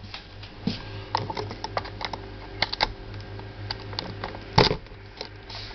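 Small clicks and taps as a key is fitted into and turned in the key switch of a homemade fridge alarm, with one louder click about three-quarters of the way through, over a faint steady hum.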